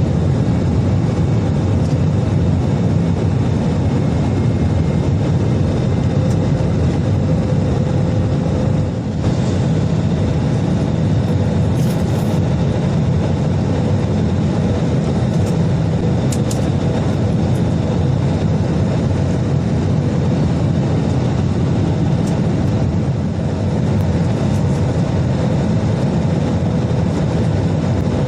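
Steady cabin noise inside an Airbus A320 in flight: a loud, even rumble of the CFM56 jet engines and airflow with a faint steady hum, and a few brief clicks around the middle.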